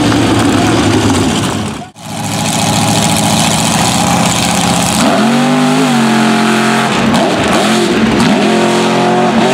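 Mud racing trucks' high-horsepower V8 engines running hard. The sound cuts out for an instant about two seconds in; later the engine revs up twice, its pitch climbing and then holding.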